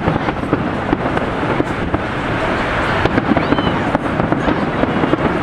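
Large fireworks display going off, a dense run of overlapping bangs and crackles with no pause.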